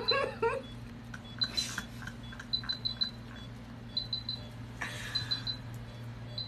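Short, high-pitched electronic beeps in quick groups of two or three, repeating every second or so over a steady low hum.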